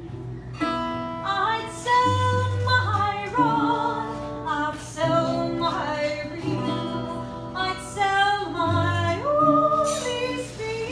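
A singer with acoustic guitar accompaniment: a sung melody with held, gliding notes over strummed chords and a low bass line.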